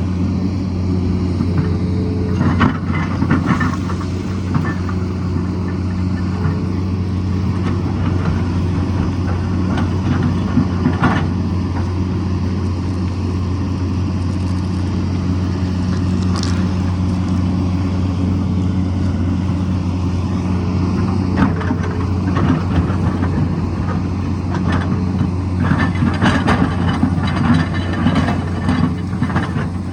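Tata Hitachi excavator's diesel engine running steadily with a constant low hum, with scattered knocks and scrapes of the bucket working rock, most frequent near the end.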